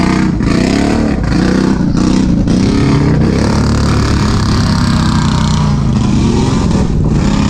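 ATV engine revving hard in repeated surges, rising and falling in pitch, then holding high revs for a couple of seconds before dropping and climbing again near the end.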